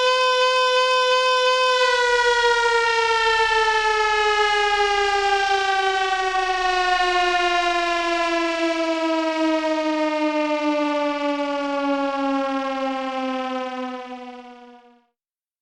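Civil-defense style warning siren holding one steady wail, then winding down slowly in pitch for about twelve seconds. It fades away and stops shortly before the end.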